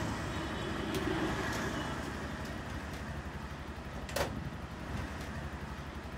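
Auto-rickshaw engine idling steadily, with a single knock about four seconds in.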